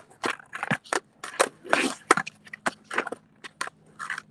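Freestyle skateboard footwork: an irregular run of sharp clacks and taps of the board hitting the ground, mixed with short scrapes.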